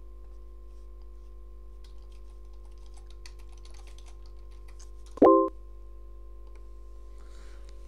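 Computer keyboard typing, a run of quick soft key clicks as a short chat message is typed. About five seconds in, a brief loud electronic beep sounds once, over a faint steady hum.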